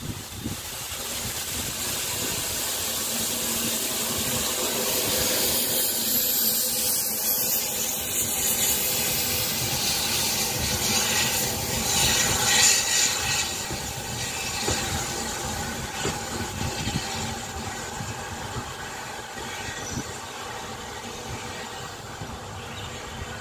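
Brookes No. 1, an 0-6-0 saddle-tank industrial steam locomotive, passing beneath with its coaches, its steam and the train running on the rails. The sound builds to its loudest about halfway through, then fades as the train draws away.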